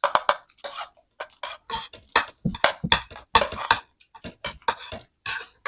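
Eating sounds close to the microphone: a quick, irregular run of short clicks and smacks from chewing a mouthful of chicken curry and rice.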